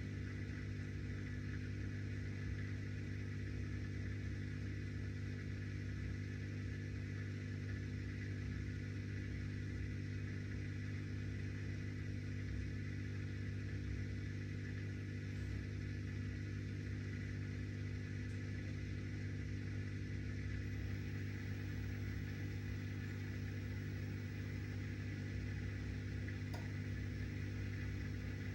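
Miele dishwasher drain pump running with a steady hum, pumping out the water after the pre-wash; it cuts off suddenly at the end.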